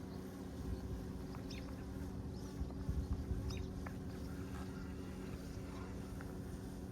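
Outdoor ambience before the siren sounds: a steady low rumble with a faint constant hum, and a few short, high chirps scattered through it.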